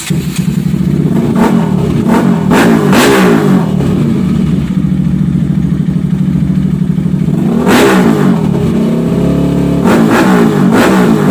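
Bajaj Pulsar RS200's single-cylinder engine running through an SC Project carbon-fibre aftermarket muffler, idling and blipped up in revs: a few quick revs in the first three seconds, another about eight seconds in, and a couple more near the end.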